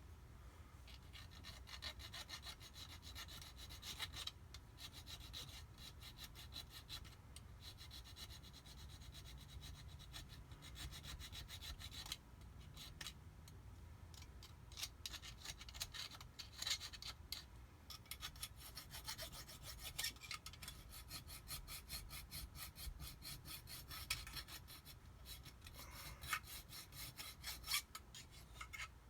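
Hand file rasping back and forth over a metal jet-ski pump part, taking sharp edges off, in steady strokes with a few short pauses.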